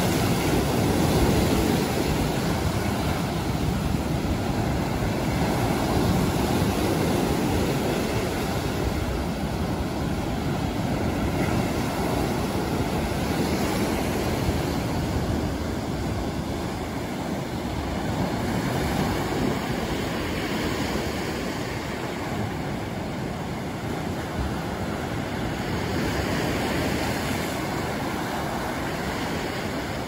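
Sea surf breaking over rocks and washing up a sandy beach: a steady rush of waves that swells and eases every few seconds.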